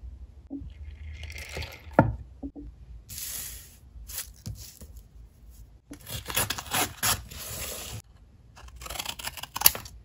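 Textured blue fibre paper being torn along the edge of a ruler in three rasping tearing stretches, with a sharp tap about two seconds in and another near the end.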